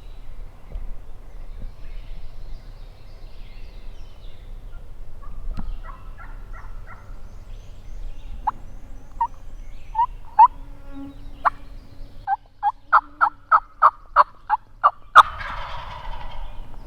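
Wild turkeys calling at close range: a run of short, sharp yelping notes that come faster and louder, followed about fifteen seconds in by a brief gobble.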